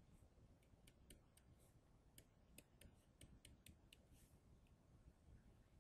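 Faint, irregular ticks of a pen stylus tapping and clicking on a tablet screen while writing, over near-silent room tone.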